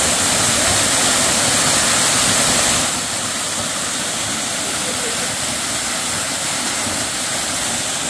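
A waterfall: a steady, loud rush of falling water close by, dropping a little in level about three seconds in.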